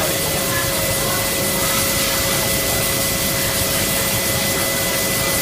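CNC cylindrical grinder running: a steady rushing machine noise with two constant whining tones, one mid-pitched and one higher.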